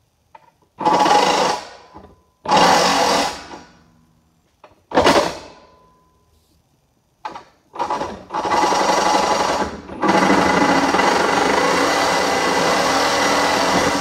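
Reciprocating saw cutting through the steel pillar bracket of a car's dash crash bar: three short bursts at first, then a long, nearly continuous cut over the last six seconds.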